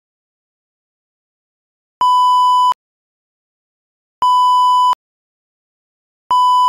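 About two seconds of silence, then three long electronic beeps, each a single steady fairly high pitch lasting about three-quarters of a second, roughly two seconds apart.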